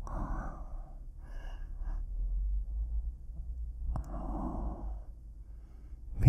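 A man breathing close to the microphone: two long, sighing exhales of about a second each, one at the start and one about four seconds in, with a low rumble between them.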